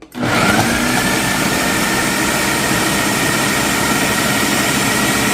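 Countertop blender switching on, spinning up briefly and then running steadily at high speed, chopping tomatoes and Brussels sprouts.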